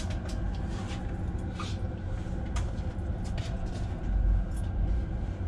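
Steady low rumble inside a passenger train carriage as the train moves slowly along the track, with scattered light clicks and knocks and a heavier thump about four seconds in.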